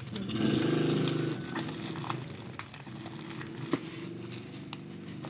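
Black plastic mailer bag crinkling and crackling, with tape being pulled, as a parcel is opened by hand. Under it a steady low drone, loudest in the first two seconds and fainter after.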